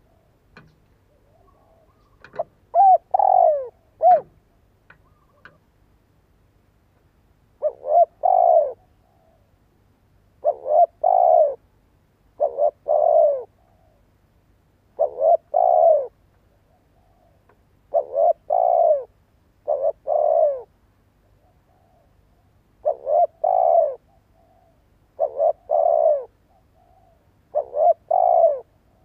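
Spotted dove cooing: a few loose coos at first, then from about eight seconds in a phrase repeated some nine times, a couple of short notes and a longer arched coo, about every two and a half seconds. This is the advertising coo of a decoy dove, used to lure wild spotted doves.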